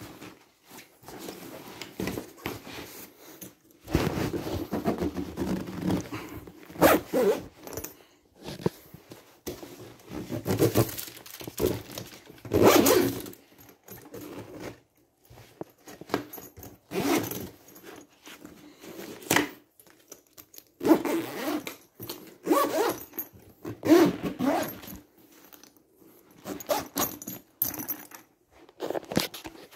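A nylon wheeled laptop trolley case being handled: zippers pulled, fabric rustling and scraping, and metal fittings jangling, in irregular bursts.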